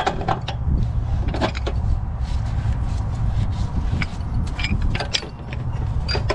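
Scattered metal clicks and clinks of a wrench working on gas meter piping, over a steady low outdoor rumble.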